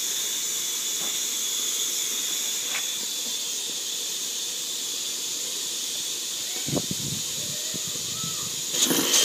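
Steady steam hiss from a coal-fired Roundhouse Fowler live-steam model locomotive with its blower on. There are a few light knocks about seven seconds in, and the hiss turns much louder just before the end.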